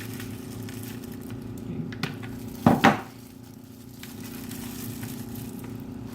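Kitchenware clattering: a small click about two seconds in, then a brief, loud double clatter, over a steady low hum.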